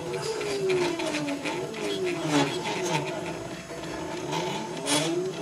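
Stepper motors of a home-built Contraptor mini CNC machine driving the pen through a G-code circle: a whine of several tones that slide down and up and cross as each axis speeds up and slows down, with scattered ticks.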